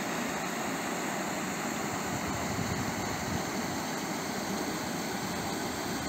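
Stream water rushing steadily over a shallow stone-stepped weir, an even, unbroken noise.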